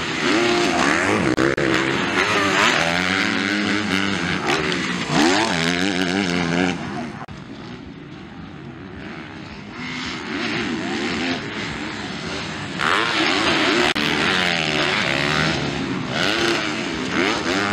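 250cc motocross bikes racing, their engines revving up and down repeatedly as riders work the throttle over jumps. The sound drops lower for a few seconds in the middle, then rises again as bikes come through close.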